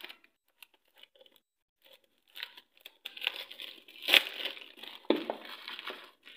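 Clear plastic wrapping being peeled and torn off a plastic jar, crinkling. A few faint crackles come first, then about three seconds of continuous crinkling and tearing with a couple of sharper rips.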